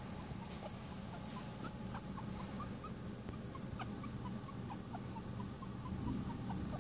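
Newborn puppies squeaking: a long run of short, faint, high squeaks, several a second, over a steady low hum.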